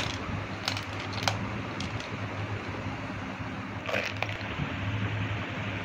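A few light plastic clicks and knocks from handling a round plastic extension-cord reel, with a cluster of clicks about four seconds in, over a steady low hum and even hiss.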